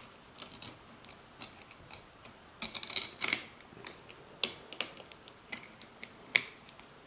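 Scattered small metallic clicks and scrapes as a Remington Model 8's coiled mainspring and ratcheted washer are worked by hand, the spring being pushed back past the washer. The clicks are irregular, with a quick cluster about three seconds in.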